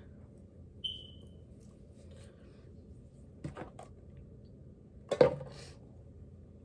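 A short high beep about a second in, then two clicks or knocks from small objects being handled and set down. The second, a little after five seconds, is the louder of the two.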